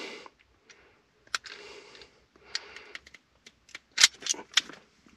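Hand crimping pliers (wire cutters) closing on a small red insulated bullet connector to crimp it onto a wire: a run of sharp metallic clicks, with the loudest ones bunched together near the end.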